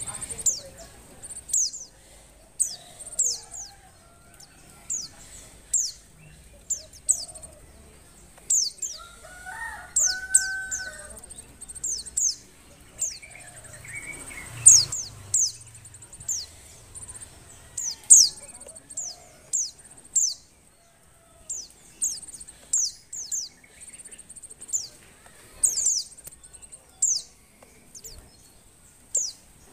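Female white-eye (pleci) calling in breeding condition: short, high chirps that slide downward, repeated irregularly, often in quick twos and threes.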